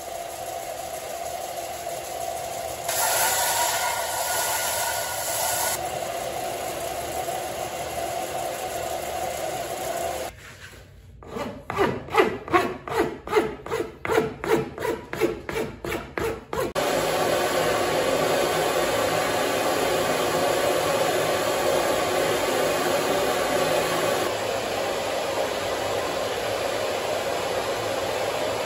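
Bench belt sander running with a wooden axe handle pressed to the belt, then a hand file scraping back and forth along the wood in about a dozen quick, even strokes, then a steady rushing noise again.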